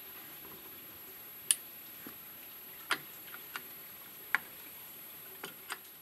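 Scattered sharp clicks, about eight, at irregular intervals over a faint steady hiss.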